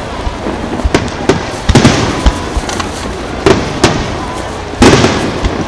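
Aerial firework shells bursting, about six sharp bangs, each with a rolling echo, the loudest about five seconds in.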